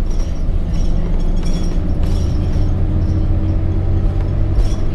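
Transit bus driving along, heard from inside the cabin: a steady low rumble of engine and road noise, with a few light rattles and clicks.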